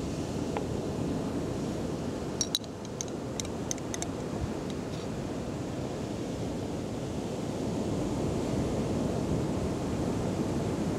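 Steady sea surf and wind on the microphone. A few light clinks of a metal spoon against a glass jar come about two to four seconds in.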